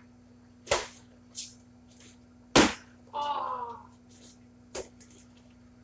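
Plastic milk jug being flipped and landing on a bare concrete floor: three sharp hits, the loudest about two and a half seconds in, with a short vocal exclamation just after it.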